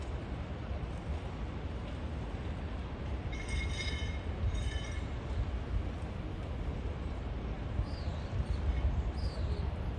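Outdoor harbour ambience: a steady low rumble, with a brief high-pitched squeal about three and a half seconds in and a few short gliding chirps near the end.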